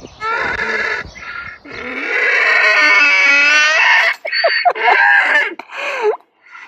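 Donkeys braying: a long, loud bray about two seconds in, rising in pitch, with shorter calls before and after it.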